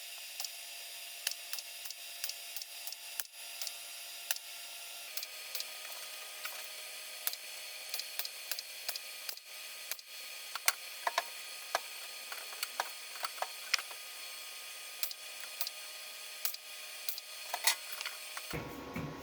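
A welder tack-welding thin sheet metal in short spots: irregular crackling pops over a steady hiss, coming thicker in the second half.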